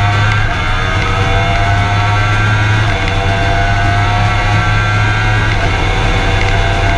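Kawasaki Ninja H2's supercharged 998 cc inline-four under hard acceleration, heard from the rider's seat: the engine note climbs steadily through each gear and drops back at each quick upshift, about every two to three seconds.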